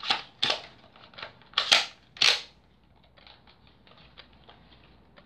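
Nerf AccuStrike Falconfire dart blaster being primed and triggered: five sharp plastic clacks and snaps within the first two and a half seconds, then only faint ticks.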